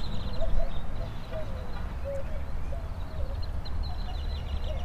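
Wind rumbling on the microphone, with birds calling: a string of short, wavering low calls and, near the end, a rapid high trill.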